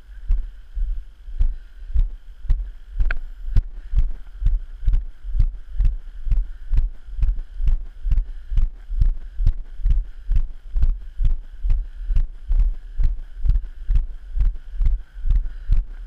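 Regular low thuds about twice a second, the walker's footsteps jolting a body-worn action camera, over a faint steady hiss. A brief sharp sound about three seconds in.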